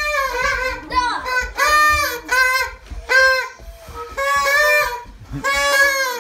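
Children's party blowers honking in short, buzzy blasts one after another, two blowers at different pitches overlapping.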